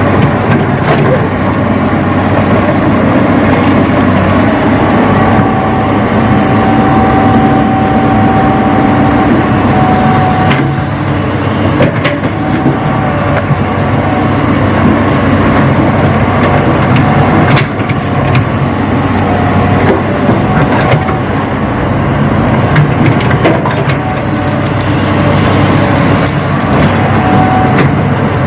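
Radio-controlled model excavator and dump truck working soil: a steady mechanical run with a whining tone that comes and goes, and a few sharp knocks, one about 18 seconds in.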